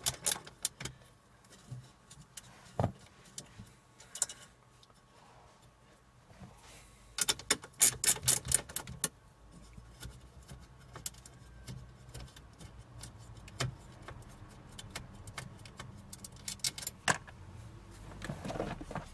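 Sharp metallic clicks and clinks of an 8 mm wrench loosening two bolts on the steel support bar under the dashboard, with a quick run of rapid clicking about seven seconds in.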